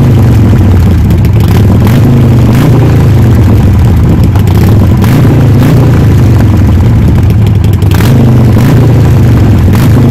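Harley-Davidson Sportster's air-cooled V-twin running steadily just after being started, heard loud and close at the muffler. It runs, showing that the newly replaced fuel pump is feeding it.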